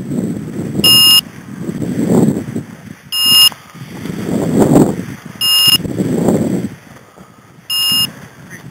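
Electronic beeper collar on a hunting bird dog sounding short, high beeps about every two seconds, four times, the loudest sound. In between, dry tall grass swishes and rustles as it is pushed through.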